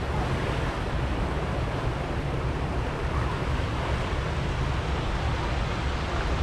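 Water rushing and churning in a river rapids ride channel around a round raft, with wind rumbling on the microphone.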